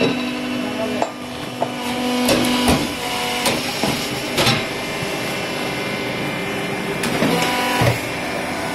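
PMB 1200 biomass briquette press running with a steady droning hum, punctuated by several sharp knocks at uneven intervals. A low steady tone in the hum drops out about two and a half seconds in.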